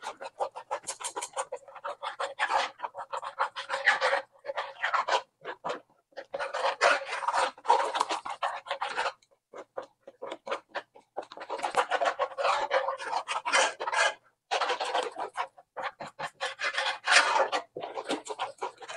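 A metal spoon stirring thick corn batter in an aluminium pot, scraping against the pot and slopping through the batter in quick strokes. The stirring comes in spells of a few seconds with brief pauses between.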